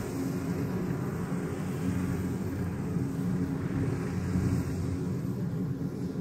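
Kubota rice combine harvester running steadily while harvesting, a constant engine drone.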